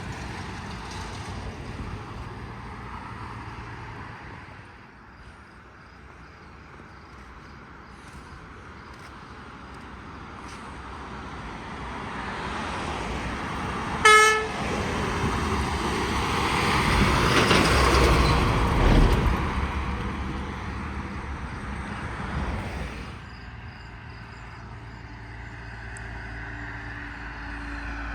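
Roadside traffic with one short, sharp vehicle horn toot about halfway through. A large vehicle then passes close by, its noise swelling for a few seconds and fading away.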